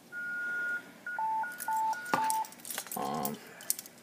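Electronic alert tones from a radio receiver: one held high tone, then a quick run of short tones alternating high and low. A short buzz follows about three seconds in.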